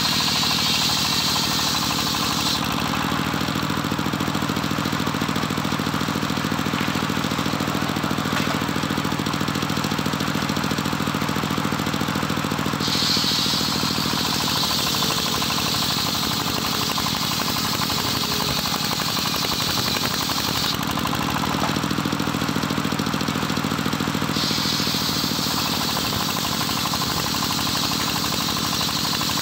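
Homemade engine-driven circular sawbench running steadily while ripping johar timber. The sound shifts twice: for about ten seconds from near the start, and again for a few seconds in the second half, a high ring drops away and the lower engine note grows stronger, as the blade takes the wood under load.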